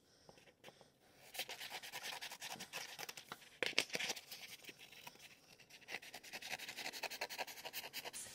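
Scissors cutting through a sheet of 3M Controltac vinyl wrap on its paper backing: a steady run of short, scratchy snips that starts about a second in.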